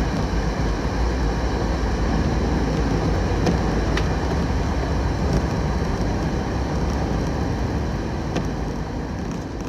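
Steady low rumbling noise with a few faint clicks, fading near the end.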